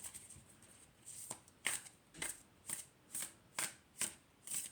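A thick-cardstock tarot deck being hand-shuffled: packets of cards slap down in short strokes about twice a second, after a softer first second.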